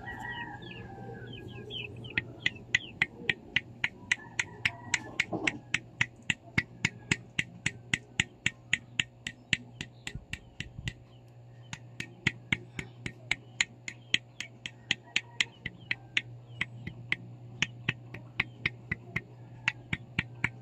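Connecting rod on a Yamaha NMAX 155 crankshaft, removed from the engine, rocked by hand so that it clicks sharply about three times a second, with a short pause a little past the middle. The clicks come from play at the worn big end, the connecting rod fault blamed for the engine's 'helicopter' sound.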